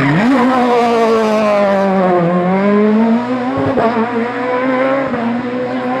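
Peugeot 306 rally car's engine accelerating out of a tight bend: the pitch jumps up, sags for a couple of seconds, then climbs again and holds a steady note as the car pulls away.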